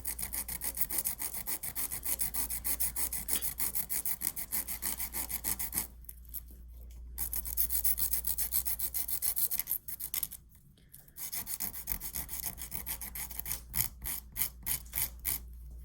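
Sandpaper rubbed quickly back and forth over the broken end of a wooden popsicle stick, a rapid scratching at about four strokes a second, smoothing the splintered wood. It stops briefly twice, about six and ten seconds in.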